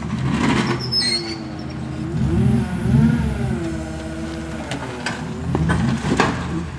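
Rock buggy engine revving under load while the buggy crawls over boulders, its pitch rising and falling a few seconds in. Short scrapes and knocks from the tyres and chassis on rock come near the start and near the end.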